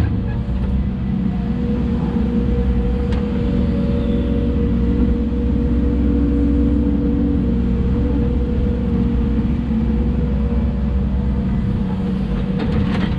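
Hidromek 140 excavator's diesel engine running steadily under working load, with a higher whine swelling for a few seconds midway.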